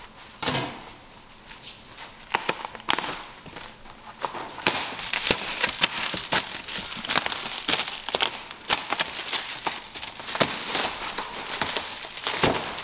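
Plastic stretch wrap being pulled and torn off a pallet of cardboard boxes, crinkling and crackling. A few sharp crackles at first, then almost continuous crinkling from about a third of the way in.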